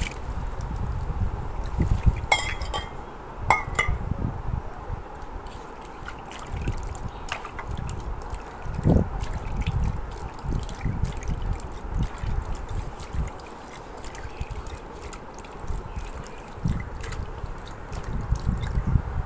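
Water poured and sloshing in the hollow of a granite wet-grinding stone as ground coconut is rinsed out and scooped up by hand with a steel bowl, with a few sharp clinks of the steel vessel against the stone.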